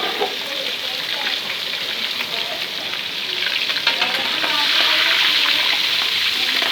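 Fish pieces frying in hot oil: a steady sizzle that grows louder about four and a half seconds in, with a few light clicks as the pieces are turned.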